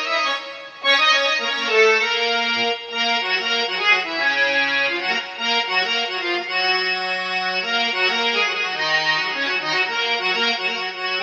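Casio CTX-9000IN keyboard playing its harmonium tone: a melody of held notes over a stepping lower line.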